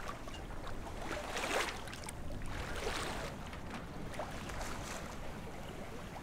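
Water washing and splashing along the hulls of a sailing catamaran under way in light wind, with a low rumble of wind on the microphone.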